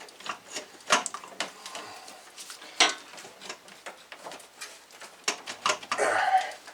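Alternator being worked by hand into the engine bay, its metal case knocking and scraping against engine parts in irregular clunks and clicks. The sharpest knocks come about a second in and just under three seconds in.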